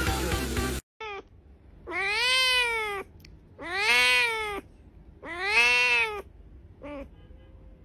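Domestic cat meowing: three long drawn-out meows, each rising and then falling in pitch, with a short call before them and another near the end.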